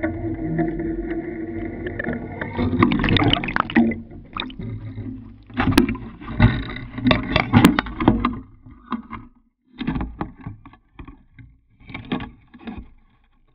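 Underwater GoPro rig being hauled up through the sea: a steady hum heard through the water, then rushing, splashing water as it rises and breaks the surface. It is followed by irregular knocks, clicks and splashes as it is handled out of the water.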